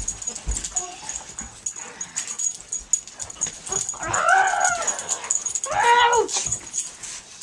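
A dog giving two drawn-out cries during rough play, each rising and then falling in pitch, about four and six seconds in, over short knocks and scuffles of the wrestling.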